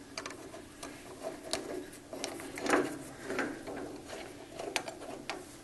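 Hex key working a cap screw in a bracket under a lathe carriage, with scattered clicks and light knocks as the key and parts are handled at an irregular pace.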